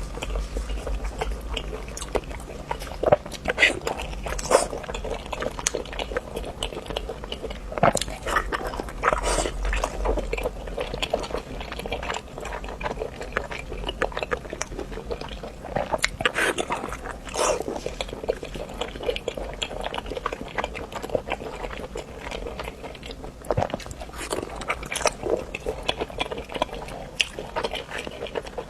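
Close-miked eating: a person biting and chewing food, with many sharp, irregular clicks and crunches.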